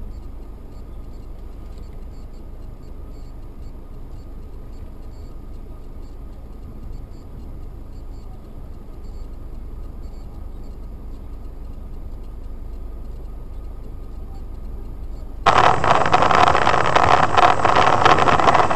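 Steady road and engine noise heard inside a moving car, picked up by a dashboard camera. About 15 seconds in it switches abruptly to a much louder, rougher noise.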